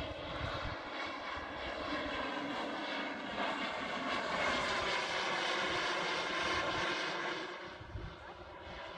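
Radio-controlled model BD-5 aircraft flying past, its engine giving a high whine that slowly drifts in pitch. It grows louder through the middle and fades away near the end.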